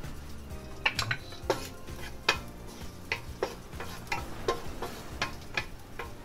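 Wooden spoon stirring chopped garlic in oil in a nonstick pot, knocking and scraping against the pot about a dozen times, roughly twice a second.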